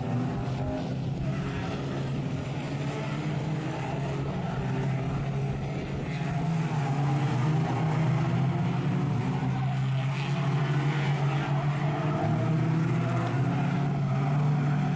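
Several banger racing cars' engines running hard around an oval track, their pitch rising and falling as they rev through the bends. The engines grow louder about six seconds in.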